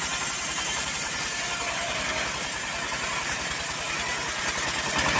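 Homemade bandsaw mill running steadily with a low rhythmic throb, its blade sawing into a teak log.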